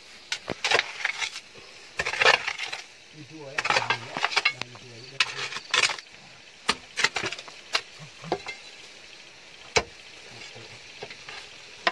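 A hand digging tool scraping and chopping packed dirt from under a truck's rear axle: clusters of gritty scrapes through the first six seconds, then a few separate sharp knocks.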